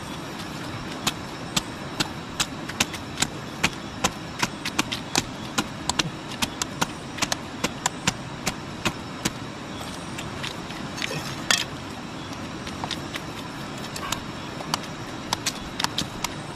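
Sharp knocks repeating about two to three times a second over a steady rushing background noise. They thin out after about ten seconds, a short scraping hiss comes near the middle, and scattered knocks return near the end.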